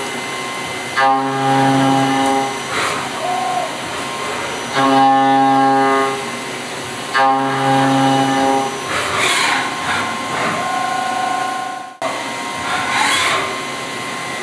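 CNC milling machine cutting a clear plastic workpiece on a rotary table under coolant: the end mill bites into the part three times, each cut giving a pitched humming tone of about a second and a half, with the spindle and coolant running steadily in between. Two short bursts of hiss follow in the second half.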